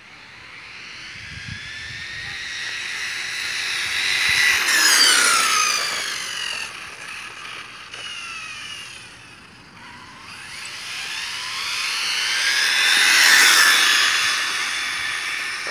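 Electric-converted OFNA Hyper 7 RC car speeding past twice. Its motor and gears give a high whine that grows louder as the car approaches, then drops in pitch as it goes by, about five seconds in and again near the end.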